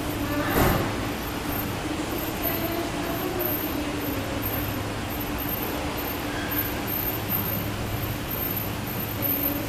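Steady hum of a 1993 Tepper diagonal traction elevator as heard inside its cabin, with a single sharp thump about half a second in.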